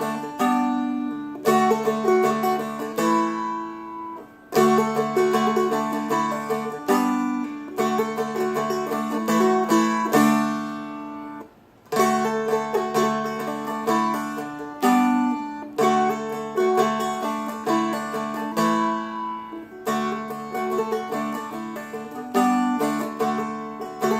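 Seagull Merlin, a four-string fretted dulcimer-style instrument, flatpicked through a Celtic jig melody over its ringing drone strings. It plays in phrases, with brief pauses about four seconds and eleven seconds in.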